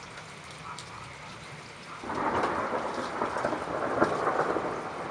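Steady heavy rain, then about two seconds in a loud thunderclap breaks suddenly and keeps rumbling and crackling over the rain.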